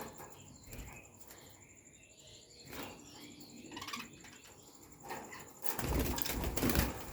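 Pet bird making small chirps and rustles, then a louder burst of wing flapping about six seconds in.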